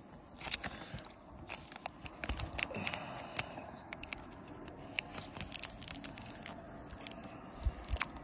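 Hard plastic graded-card slab being handled and turned in the fingers, with many irregular sharp clicks and taps of the case and the crinkle of a thin plastic bag around it.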